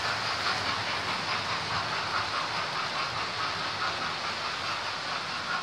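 Model trains running on the layout's track: a steady, even running noise of small locomotives and coaches moving along the rails.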